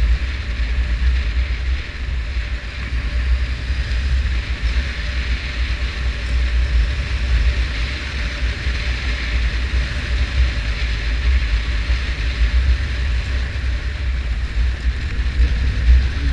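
Motorcycle engine running steadily while riding a dirt road, with heavy wind buffeting on the microphone.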